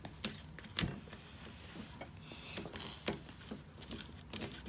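Small plastic spoon stirring and scraping candy powder dough in a plastic tray, with scattered light clicks against the tray, the sharpest about a second in.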